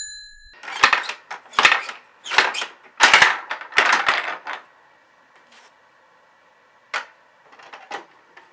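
A series of about six sharp bangs, roughly two-thirds of a second apart, each trailing off briefly, followed near the end by a few fainter clicks. A bell's ring fades out at the very start.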